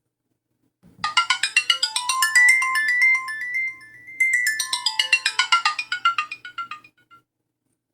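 One of the Alcatel 3025 mobile phone's built-in melodies playing from its speaker. A quick run of short electronic notes starts about a second in, a note is held in the middle, then a second quick run follows and dies away near the end.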